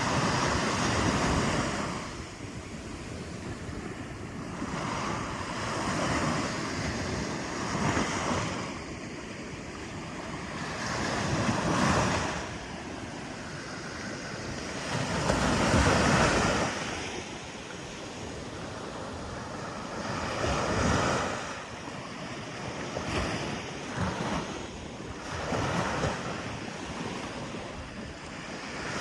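Sea waves breaking on the shore, each one swelling and fading every few seconds, with the largest about halfway through.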